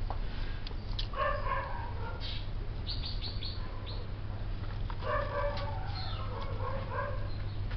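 Bird calls in two stretches, about a second in and again from about five to seven seconds, with a few short high chirps in between, over a steady low hum.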